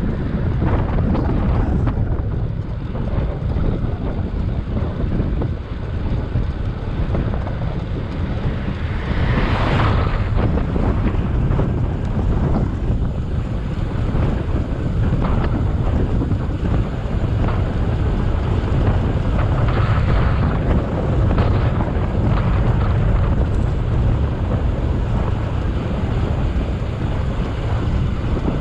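Wind rushing over the microphone of a moving bicycle, a steady low rumble, with a brief hissier surge about a third of the way in.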